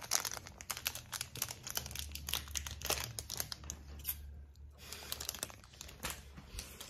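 Plastic snack wrapper crinkling in the hand: irregular crackles, with a short pause about four seconds in.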